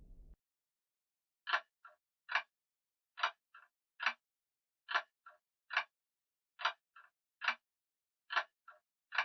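Short sharp clicking taps in a steady repeating pattern of three (loud, soft, loud), a group about every second and a half to two seconds, starting about a second and a half in. Just before them, the tail of a fading low rumble cuts off abruptly right at the start.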